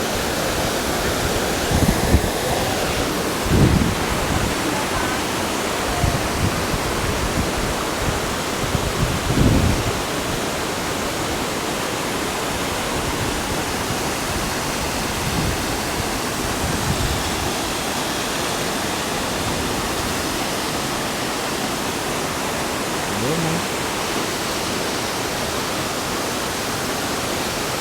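Düden waterfall: a steady, even rush of falling water, with a few low thumps in the first ten seconds.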